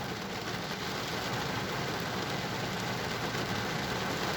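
Heavy rain drumming steadily on a car's roof and windshield, with a low engine idling hum underneath.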